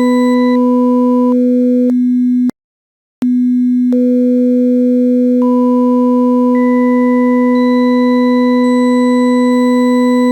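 Synthesized Weierstrass-function tone: a steady, organ-like low note built from partials stacked an octave apart. Over the first two seconds the upper partials drop away one by one until a plain tone is left. It cuts out for under a second, then returns and the higher octaves come back one at a time.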